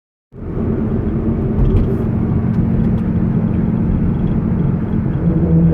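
1999 Pontiac Trans Am's LS1 5.7-litre V8 running steadily off load with a deep, even rumble and a constant low tone, starting sharply just after the beginning, with a few faint ticks in the middle. The steady tone is likely the weird noise the owner can't place, which he says does not happen under load.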